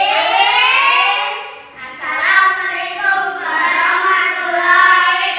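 Children singing together in held notes, with a brief break about a third of the way through before the singing resumes.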